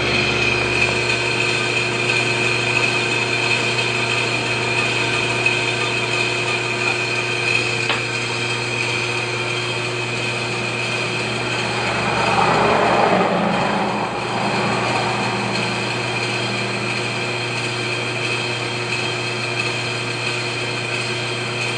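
Metal lathe running with a flywheel turning in its chuck while its face is machined flat: a steady machine whine made of several fixed tones. A rushing noise swells briefly about halfway through.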